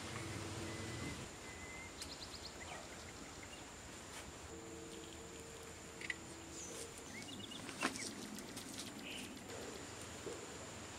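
Quiet rural outdoor ambience with scattered short bird chirps, and sharp knocks from clay cooking pots being handled, one about six seconds in and a louder one about eight seconds in.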